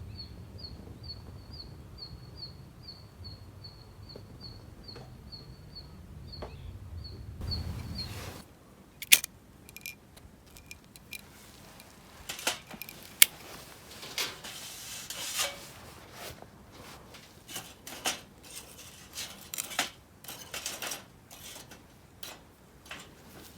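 A bird calling a fast series of short, even high notes, about three a second, over a low rumble that stops about eight seconds in. After that come scattered small clicks, taps and scrapes of things being handled.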